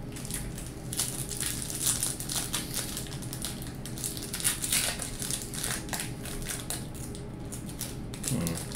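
Foil wrapper of a 1998 Score football card pack crinkling and tearing as it is worked open by hand, a dense run of irregular crackles.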